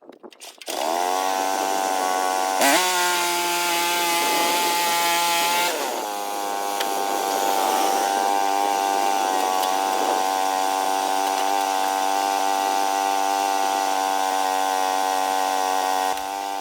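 A small sawmill's engine starting up, rising to speed, then running steadily at high speed; its level drops near the end.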